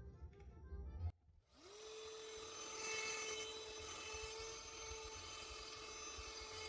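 Electric air blower spinning up about a second and a half in, then running with a steady whine, used to blow dust and dog hair out of a laptop.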